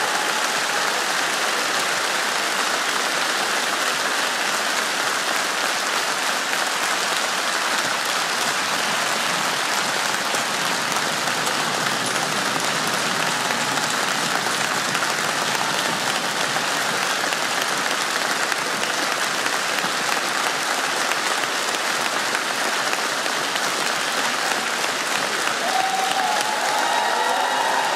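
Studio audience applauding, a long, steady round of clapping from a large crowd.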